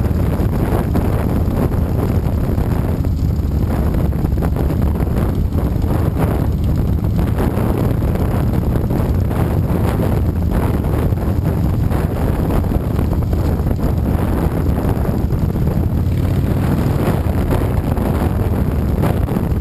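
Wind buffeting a motorcycle-mounted microphone at road speed, over the steady low drone of the motorcycle's engine while cruising.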